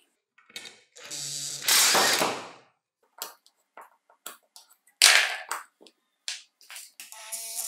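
Metal handling sounds from a drill motor's armature being worked on with a thin metal punch at its fan end: two longer scrapes, about a second in and about five seconds in, with scattered sharp clicks and taps between.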